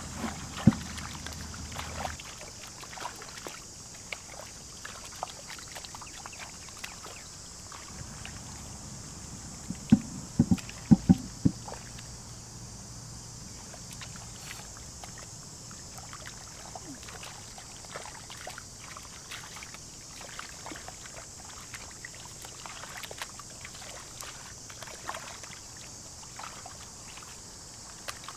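Hands splashing and groping in shallow muddy water while fishing by hand, with scattered small clicks over a steady high hiss, and a quick cluster of loud knocks about ten seconds in.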